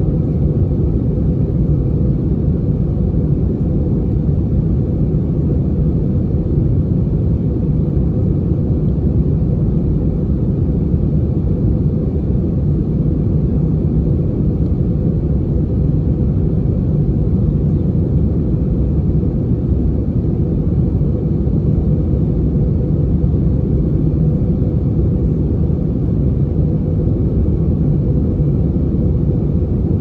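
Steady cabin noise of a jet airliner on descent: engine and airflow rumble heard from inside the cabin, with a faint steady hum running through it.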